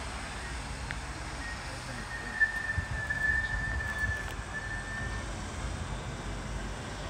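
Southern electric multiple unit running away from the platform, a low rumble fading with distance. A thin, steady, high whistling tone sounds from about a second and a half in until about five seconds in.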